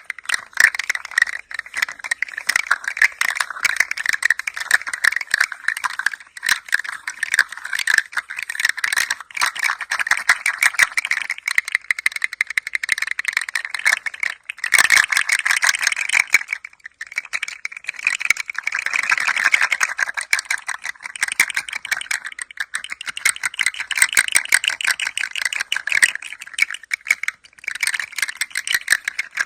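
A hand-held toy rattling as it is moved, a dense run of small quick clicks with a few brief pauses, the longest near the end.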